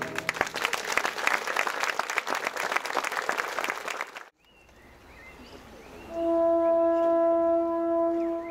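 Audience applause that cuts off abruptly about four seconds in. After a short lull, a brass horn starts a single long held note about six seconds in.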